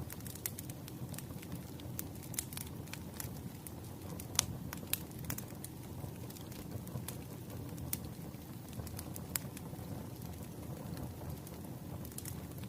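Firewood burning in a fireplace, crackling with irregular sharp snaps and pops over a steady low rumble of the flames; the loudest snaps come about four and five seconds in.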